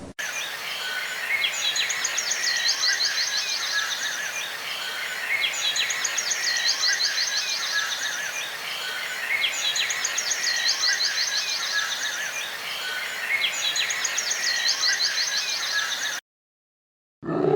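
A bird sings the same fast, high trill about every four seconds over a steady background hiss. The sound cuts off abruptly near the end.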